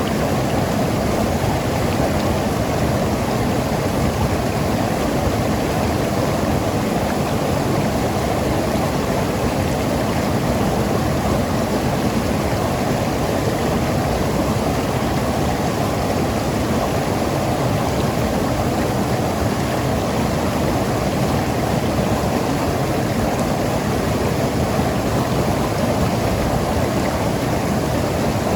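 Mountain river flowing and gurgling over rocks, a steady rush of water.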